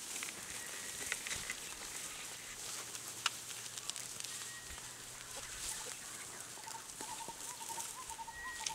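Footsteps swishing and crunching through dry grass, with birds calling; a wavering, repeated bird call starts about seven seconds in.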